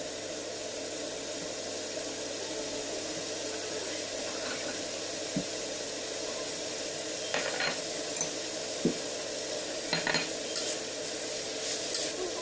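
Green chilies and sliced meat sizzling steadily in a hot wok, with a thin steady hum underneath. A few sharp clicks and scrapes of a spatula against the wok come in the second half, more often near the end.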